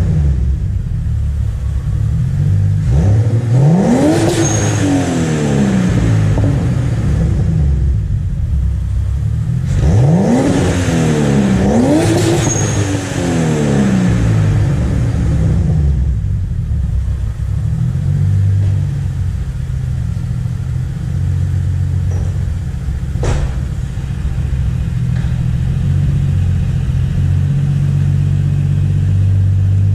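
Turbocharged BMW M52B28TU straight-six with a GT3530 hybrid turbo and a 3-inch open exhaust ending in a Magnaflow muffler, idling and revved in free revs: one rev a few seconds in, two quick ones in a row around ten to twelve seconds, each dropping back to idle, and another beginning near the end.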